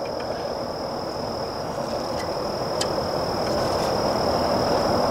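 Steady outdoor background hiss with a continuous high-pitched insect drone running through it, and a single faint tick about three seconds in.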